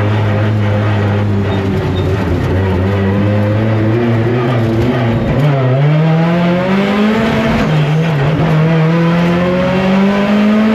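Deep Orange 9 race car's engine accelerating through the gears. It holds a steady note, then revs up from about five seconds in, drops briefly at a gear change near eight seconds, climbs again, and drops once more at the end.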